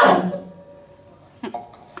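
A live band's sung music breaks off and rings away in the hall, leaving a short quiet pause with one brief sound about one and a half seconds in.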